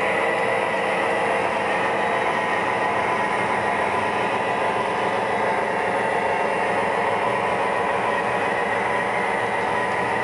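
O-gauge model freight train rolling steadily past on its track: a continuous even rumble of metal wheels on rail.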